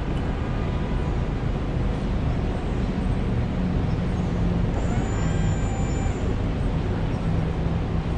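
City street traffic heard from a car driving through Manhattan: steady engine and road noise with a low hum. A brief higher-pitched sound about five seconds in.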